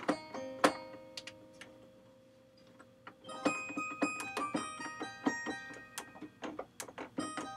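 Short notes of a soundfont instrument played through Logic's EXS24 software sampler, each starting sharply and fading. A lull comes about two seconds in, then a quicker run of notes from about three and a half seconds.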